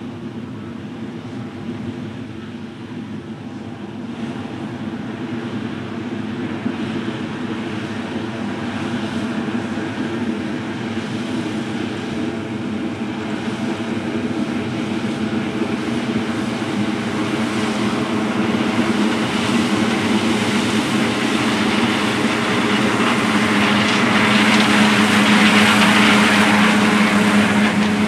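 Combine harvester running as it cuts corn: a steady engine and threshing drone that grows louder as the machine approaches.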